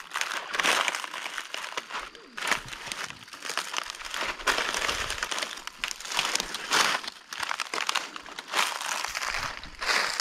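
Dry fallen leaves crunching and rustling underfoot as a person shifts and steps on a leaf-covered bank, in irregular bursts about once or twice a second.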